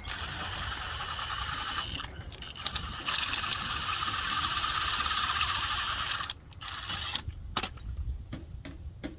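Power drill running a step drill bit, reaming a hole wider: a run of a couple of seconds, a brief pause, then a louder, longer run of about three seconds, with a few short bursts near the end.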